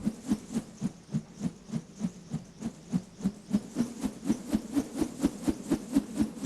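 A rapid, even series of dull knocks, a little under four a second, growing slightly louder and quicker toward the end.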